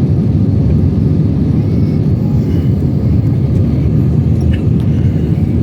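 Steady, loud, low rumble of a vehicle in motion.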